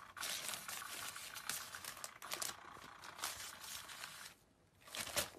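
Faint rustling and crinkling with many small clicks, dropping away briefly about four seconds in.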